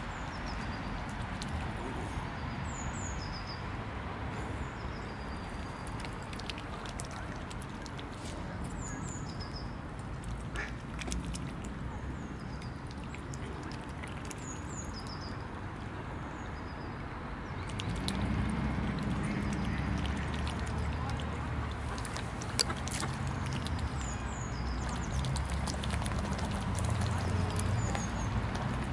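Mute swans feeding at the water's edge, dabbling and splashing with their bills, with scattered clicks. Short high bird chirps repeat in the background, and a low rumble sets in about two-thirds of the way through.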